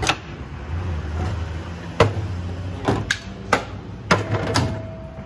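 A string of sharp, uneven knocks and clacks at a banta soda stall: one right at the start, then about six more between two and five seconds in, as the soda seller bangs his bottle and glasses about.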